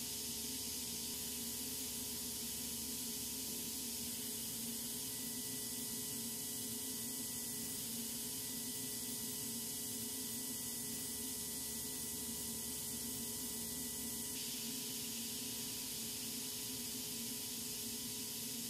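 Big Daishowa RSX 7 air turbine spindle, the air-hydrostatic-bearing type, running at 50,000 rpm while a tiny endmill cuts nickel-phosphorus plating: a steady hiss of compressed air with a few low steady hum tones under it. A faint higher steady tone comes in about five seconds in and drops out around fourteen seconds.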